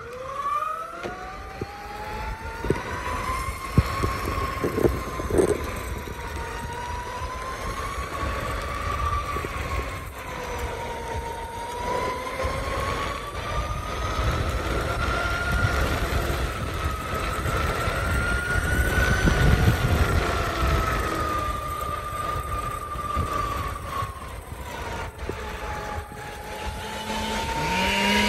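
Electric unicycle's hub motor whining under load on an uphill climb, its pitch rising and falling slowly with speed. A steady low rumble of wind on the microphone runs underneath.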